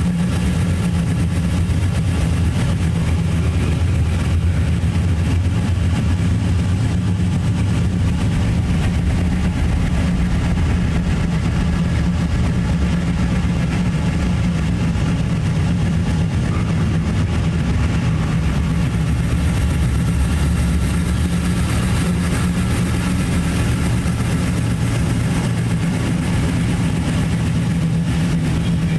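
Dark ambient drone music: a steady, low, rumbling drone with a few faint held higher tones above it. A hiss in the high end swells about two-thirds of the way through.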